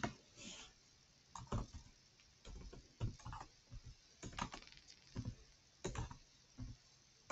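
Computer keyboard typing: faint, irregular keystrokes with uneven pauses between them.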